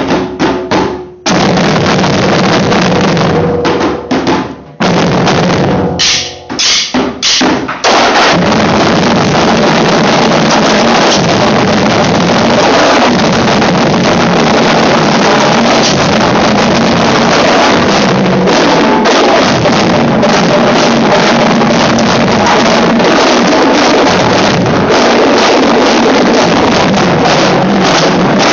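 A marching drumline together with hand drums plays a world-beat percussion piece with Brazilian and Afro-Cuban rhythms. For about the first eight seconds it plays in short phrases broken by brief pauses, then the full ensemble plays continuously.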